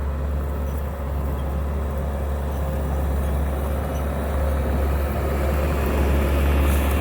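Bobcat T650 compact track loader's diesel engine running steadily as the machine travels, a constant low drone.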